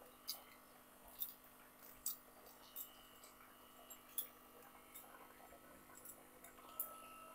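Near silence with faint, sharp ticks, roughly one a second.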